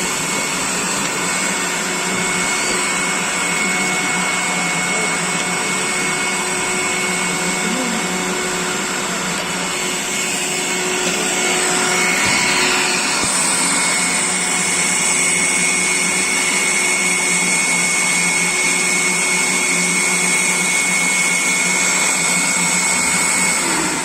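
Dustprom PP-220/15.1-1.5 industrial vacuum cleaner running steadily, a high motor whine over the rush of air. About halfway through it grows a little louder and its top whine shifts up in pitch.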